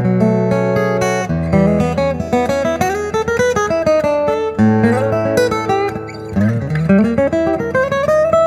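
Recording King acoustic guitar fitted with a K&K Pure Mini pickup, played solo: sustained bass notes ring under a melody whose notes slide upward in pitch several times.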